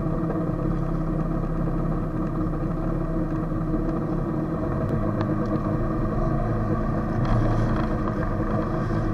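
Jet ski engine running steadily while riding, with water rushing and splashing against the hull; a brief louder rush of noise about seven seconds in.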